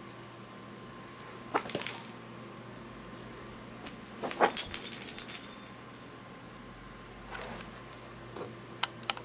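Kitten playing with cat toys on a carpet: a few light knocks and taps, and about four and a half seconds in a toy jingles for over a second.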